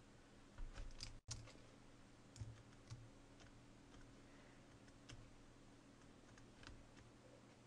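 Faint, irregular clicks of a computer mouse and keyboard over a low steady hum. The sound cuts out completely for an instant about a second in.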